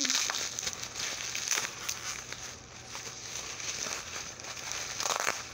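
Packaging being handled: irregular crinkling and rustling with small clicks.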